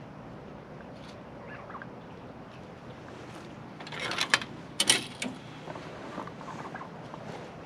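Soft scattered clucks and calls from turkeys and chickens over a steady background hiss, with a brief loud rustling flurry about four seconds in.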